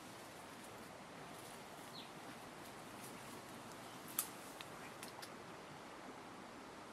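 Faint footsteps and rustling through forest undergrowth over a steady background hiss, with a few light clicks and one sharp snap about four seconds in.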